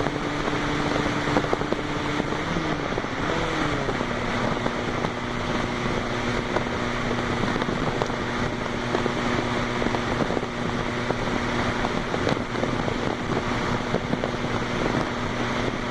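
Fiat 128's four-cylinder engine running loudly with a steady drone; about three seconds in its pitch dips and rises briefly, then settles a little lower.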